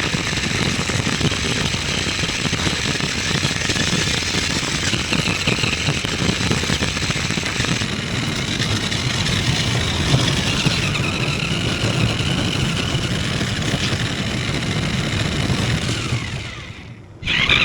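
An RC monster truck's small brushed electric motor and gears whining as it drives, the pitch rising and falling with throttle over a rough rattling noise. The sound fades out near the end, then comes back abruptly.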